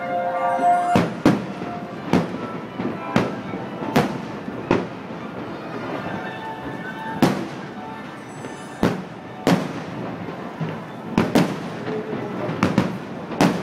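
Fireworks shells bursting: about a dozen sharp bangs at irregular intervals, some in quick pairs, over a steady background.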